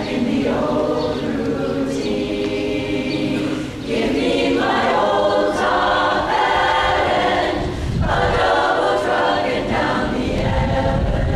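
Women's chorus singing together, phrase after phrase, with short breaks between phrases about four and eight seconds in.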